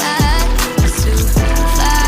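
Background pop song with a wavering sung vocal over deep bass hits that drop in pitch.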